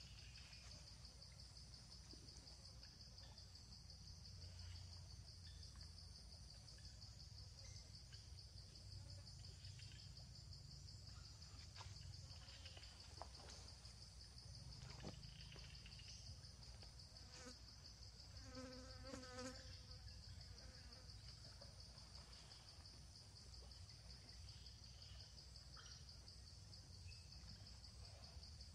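Faint, steady chorus of insects, a high, fast-pulsing buzz, over a low background rumble. A short pitched call sounds briefly about two-thirds of the way through.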